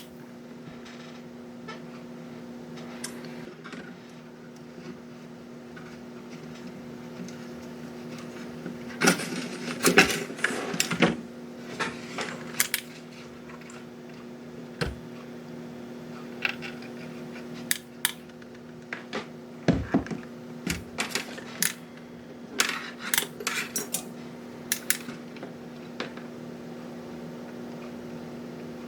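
Steady electrical hum, with scattered clinks and clatter of small hard parts being handled, in two busy stretches about a third of the way in and from the middle on.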